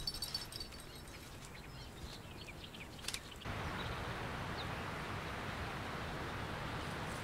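Quiet outdoor ambience with a few faint bird chirps, changing about three and a half seconds in to a steady hiss of background noise.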